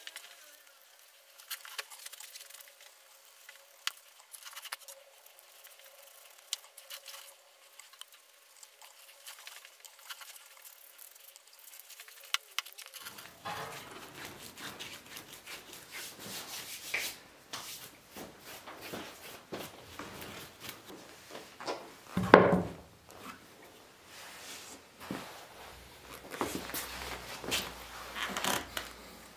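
A bristle brush rubbing over a hollowed log stool's bark and bare wood: light scratchy strokes with scattered small clicks. A little past two-thirds of the way in comes one loud wooden thump, and near the end several smaller knocks as the stool is handled on a tiled floor.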